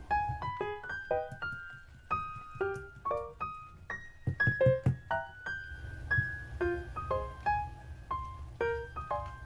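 Background music: a light melody of short, plucky keyboard notes, like a piano or electric piano.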